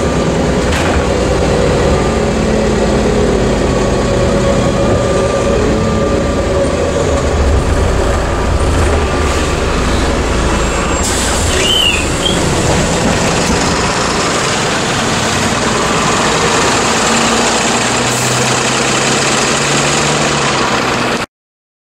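Modulo M108d midibus heard from inside, running with steady engine and road noise. A brief squeal comes about halfway through, and after it the low rumble falls away; a steady low hum follows near the end before the sound cuts off abruptly.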